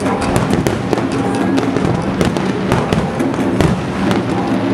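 Aerial fireworks shells bursting in many sharp, irregular bangs and pops, over loud music with sustained tones.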